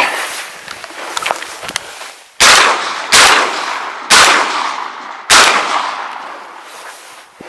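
Four shotgun shots in about three seconds, starting a little over two seconds in. Each one is loud and fades out before the next, and the last fades over about two seconds. The shots are fired at ducks on a walk-up hunt.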